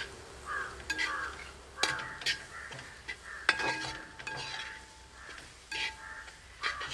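Metal spatula stirring and scraping spice masala around a metal cooking pot, with sharp clinks of metal on metal, some ringing briefly, over a faint sizzle as the raw spice powders fry in the onion-tomato base.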